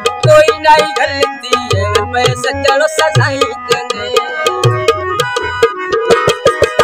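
Tabla and harmonium playing Punjabi mahiye tappe folk music: quick tabla strokes with recurring deep bass-drum booms under held harmonium chords.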